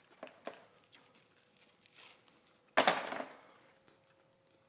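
Handling noise: two light clicks near the start, then a short, louder scraping rustle about three seconds in.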